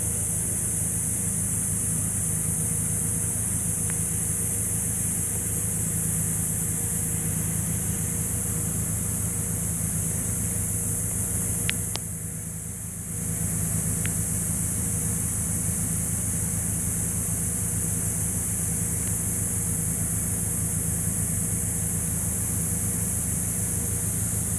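A steady machine drone: a low hum with a constant high hiss over it. It dips briefly about halfway through.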